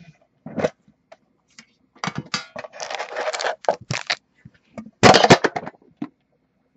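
Hands opening a UD Premier hockey card tin: scrapes, clicks and crinkles as the lid and black plastic insert are lifted out and the foil-wrapped pack is handled. The loudest burst of noise comes about five seconds in.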